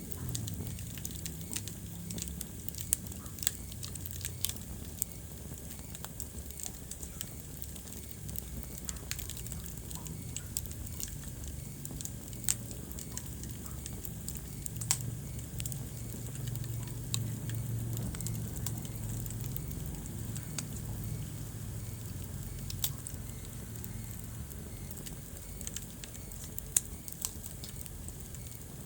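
Wood fire burning in a fireplace: a steady low rumble of flames with constant light crackling and an occasional sharper pop.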